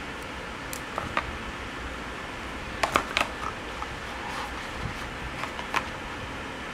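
Hands handling a plastic wall charger and a cardboard box with its paper insert: a few sharp clicks and taps, the loudest cluster about three seconds in, over a steady background hiss.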